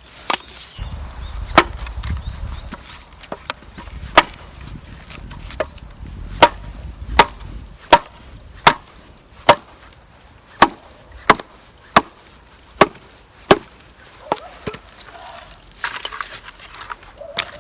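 Thick branch being chopped for firewood: a steady series of about twenty sharp wooden knocks, roughly one every three-quarters of a second, stopping a few seconds before the end.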